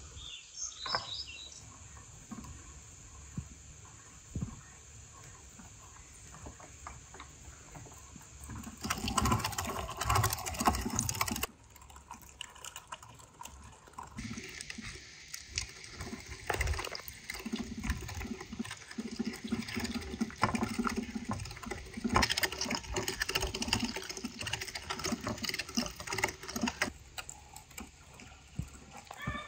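Hand-cranked meat grinder mincing raw meat, with the handling of the wet meat: a run of irregular small clicks and squishes in several short stretches.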